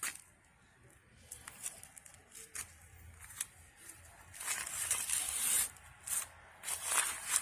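Hands handling things among orchid pots: a few sharp clicks, then several bursts of rustling and scraping from about four and a half seconds in.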